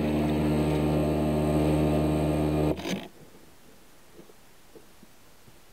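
Brushless electric motor of a HobbyKing Small Bolt twin-hull RC boat, on a 3S LiPo, running at a steady pitch, then cutting off suddenly about three seconds in.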